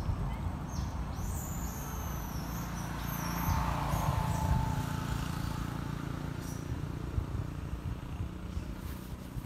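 Outdoor background noise: a steady low rumble that swells about four seconds in, with a few high chirps in the first seconds.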